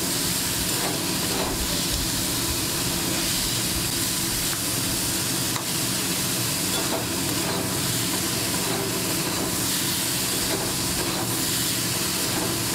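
Chopped onion, garlic and green chillies sizzling steadily in hot mustard oil in a metal kadai, being fried down for a masala, stirred with a metal spatula that scrapes the pan a few times.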